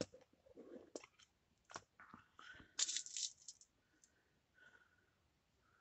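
Small hard craft pieces clicking and rattling as they are handled and sorted through, with a few sharp clicks early and a louder stretch of scraping and rustling around the middle.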